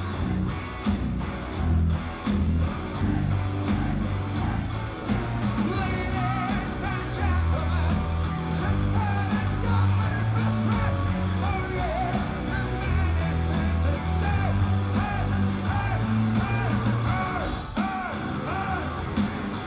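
A metal band playing live: electric guitar, bass guitar and drums, with a male lead voice singing over them from about six seconds in.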